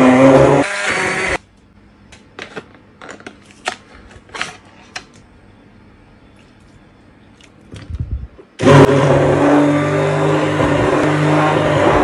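Philips immersion hand blender motor running as it purees boiled potatoes, its pitch sinking slightly, then cutting off about a second and a half in. A few light knocks and taps follow, and about nine seconds in the blender starts again, running steadily as it blends milk and butter into the mash.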